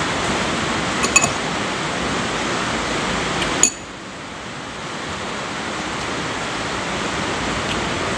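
Steady hiss with a few light clinks of a metal spoon against a glass bowl, a couple about a second in and a sharper one a little past three and a half seconds, after which the hiss drops suddenly and slowly comes back up.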